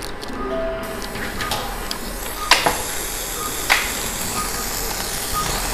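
Surgical suction running with a steady hiss through a 0.7 mm ear-surgery suction tip, broken by two sharp clicks about two and a half and three and a half seconds in.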